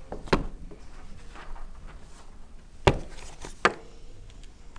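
A few sharp knocks and clicks of small objects handled on a desk: one near the start and two close together about three seconds in, with fainter taps between.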